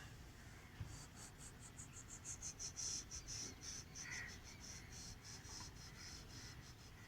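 Faint, high-pitched insect chirring: rapid pulses that start about a second in and speed up into an almost continuous buzz.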